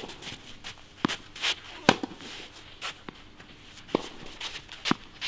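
Footsteps and shoe scuffs on a tennis court surface: irregular sharp steps and short scrapes, roughly one every second.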